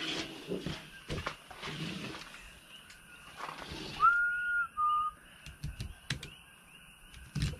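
A barracuda being handled and cut on a plastic table: scraping rustles, then a few light knocks near the end. About four seconds in comes a loud two-note whistle, a held note followed by a shorter, slightly lower one. A steady chirping chorus runs behind it all.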